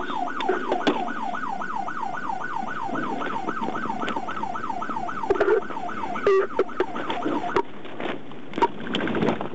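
Police car siren in a fast yelp, sweeping up and down about three times a second, which stops about five seconds in; a few clicks and knocks follow.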